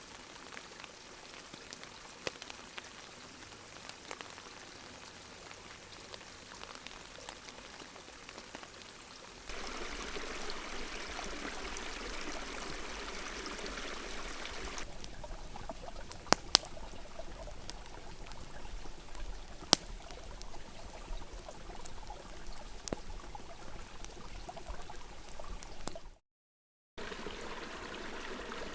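Rain falling steadily in a forest, a rushing hiss of water with a few sharp ticks of drops striking. The sound steps louder twice and cuts out briefly near the end.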